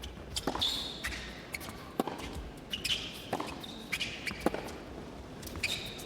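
Tennis rally: the ball struck back and forth by rackets, a sharp hit about every second, with sneakers squeaking on the court between shots.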